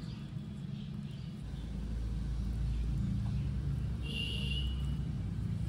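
A low, steady rumble that grows louder about a second and a half in, with one brief high bird call about four seconds in.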